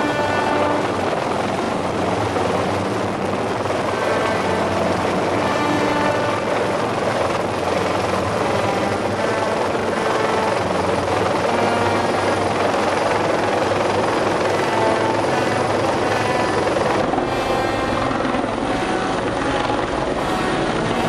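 Helicopter running steadily, with background music playing over it.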